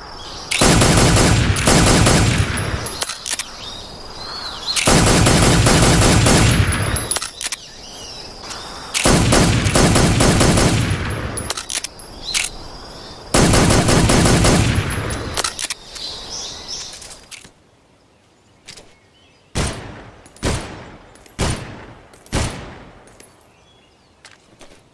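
M1911 .45 pistol gunfire: four long stretches of rapid fire, each about two seconds, then, from about two-thirds of the way in, single shots roughly one a second.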